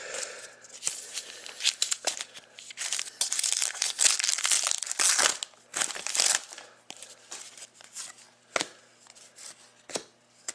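A trading-card pack wrapper being torn open and crinkled, with dense crackling from about two and a half to six and a half seconds in, and scattered sharp ticks before and after.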